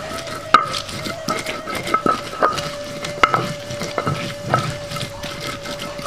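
A stone pestle grinding shallots and garlic on a flat stone grinding slab: a rough scraping, broken by irregular clicks and knocks where stone strikes stone. A steady tone runs underneath.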